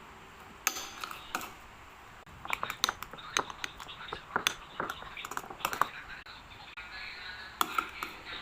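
Fluffy slime being worked, giving irregular wet clicks and sticky pops.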